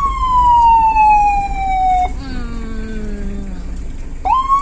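Vehicle siren wailing: one long falling wail that cuts off about two seconds in, then sweeps up again near the end, over a steady low rumble of the moving vehicle.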